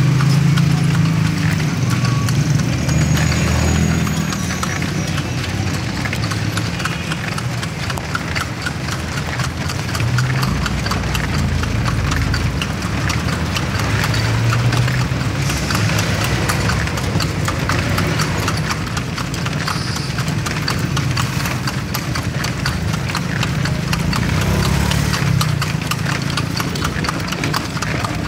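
Horse's hooves clip-clopping steadily on a paved street as it pulls a kalesa (horse-drawn carriage), with a low engine rumble from traffic underneath.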